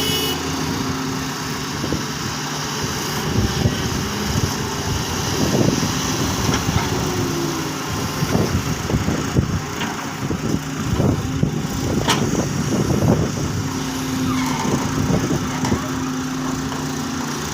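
Doosan excavators' diesel engines running steadily, with irregular clanks and knocks from the digging work through the middle of the stretch.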